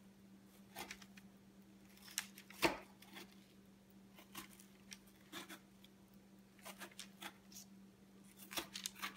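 Kitchen knife cutting slits in rolled strudel dough on a parchment-lined metal baking sheet: irregular soft clicks and scrapes as the blade goes through the dough onto the paper and pan.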